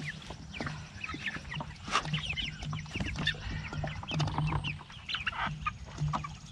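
A flock of four-week-old meat chickens peeping and clucking in many short, quick, overlapping calls.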